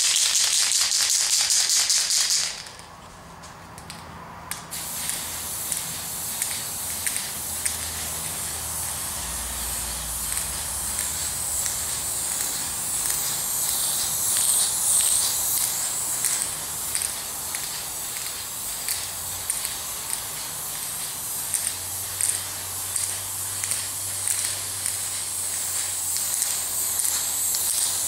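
Tamiya aerosol paint can shaken, its mixing ball rattling for the first couple of seconds. After a short pause, the can sprays in a long, steady hiss.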